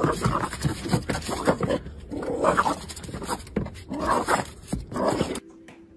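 A dog vocalising in a string of short calls, about one or two a second, that cuts off abruptly near the end.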